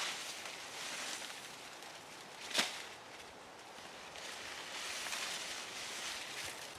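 Leafy corn stalks rustling as they are gathered and handled by hand, with one sharp crack about two and a half seconds in.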